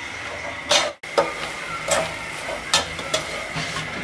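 A metal ladle stirs frying snails and greens in an aluminium pot, scraping and clinking against the pot several times. A faint sizzle sounds underneath.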